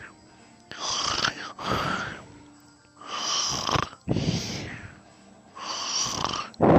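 A person snoring in sleep: three rounds of snoring about two and a half to three seconds apart, each a pair of snores close together.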